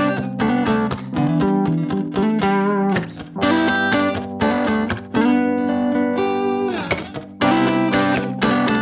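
Background music led by plucked guitar, with a steady rhythm of repeated chords.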